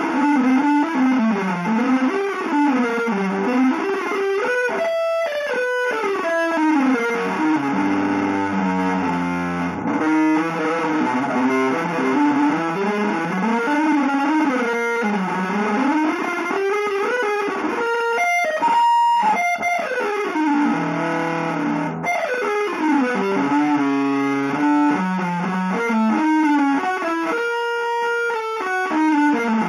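Electric guitar, run through effects, playing a fast, almost unbroken free-improvised line of runs that sweep up and down in pitch with no settled melody. It breaks off briefly a few times.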